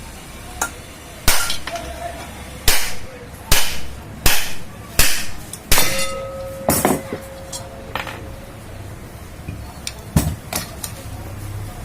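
Hammer blows on metal, about seven sharp strikes in an uneven series and then a couple more a few seconds later. One blow leaves a short metallic ring, typical of tapping apart a ceiling fan's housing to reach its bearing.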